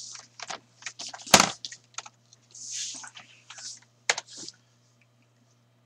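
Computer keyboard typing and mouse clicking in irregular taps, with one loud sharp click about a second and a half in; the tapping stops about four and a half seconds in. A faint steady hum runs underneath.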